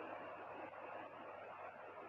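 Faint steady hiss with a low hum underneath: room tone.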